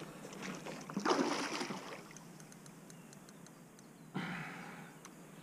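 Water splashing and swirling in two short bursts, about a second in and about four seconds in, as a hooked river carp fights at the surface close to the boat.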